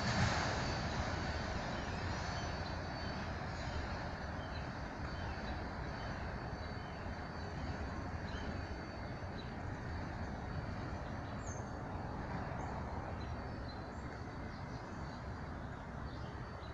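Freight train of autorack cars rolling away, its low rumble of wheels on rail slowly fading into the distance. A few birds chirp faintly over it in the second half.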